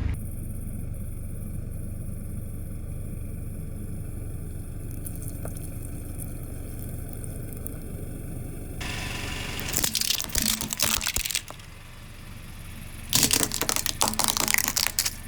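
A car tyre rolling over and crushing objects: two spells of crackling and crunching, one about ten seconds in and another about thirteen seconds in, each lasting a second or two, over a steady low rumble.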